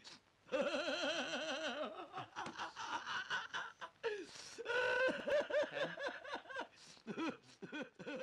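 Laughter in several bouts, the voice's pitch quavering quickly up and down.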